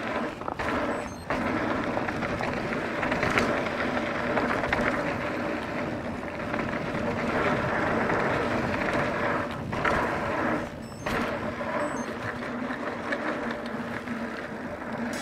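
Mountain bike rolling down a dirt trail, heard through a GoPro mounted on the rider or bike: a steady rolling noise from the tyres and bike, broken by short dips twice near the start and twice around ten to eleven seconds in.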